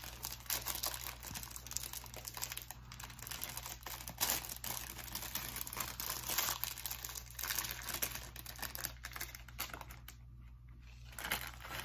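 Plastic snack packet of bacon flavoured fries crinkling irregularly as it is handled and opened.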